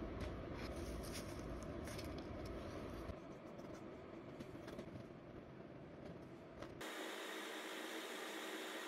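Faint room noise, a steady hiss and low hum, with light scratching and rubbing of a pencil and a small brush on canvas. The background changes abruptly about three seconds in and again near seven seconds.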